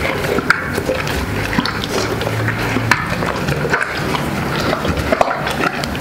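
An 80 kg mastiff-type dog eating roast chicken scraps off the floor, chewing and crunching bones with many short sharp cracks while it noses around the scraps.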